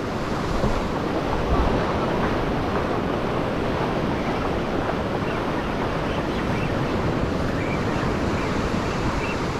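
Ocean surf washing steadily up a shallow shore, with wind rumbling on the microphone.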